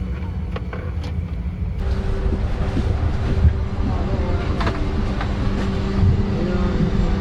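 Steady low rumble inside the cabin of a Bombardier CRJ1000 regional jet after landing, with a steady hum that comes in about two seconds in.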